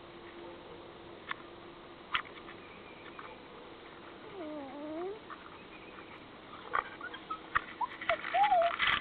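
Animal calls: a short whine that dips and then rises in pitch about halfway through, and a shorter wavering call near the end. Scattered sharp clicks run between them, thickening into a rustling clatter near the end.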